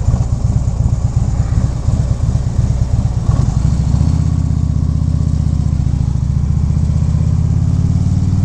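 2014 Harley-Davidson Ultra Limited's V-twin engine idling with an uneven lope, then settling into a steady, even run about four seconds in as the bike rolls forward in low gear.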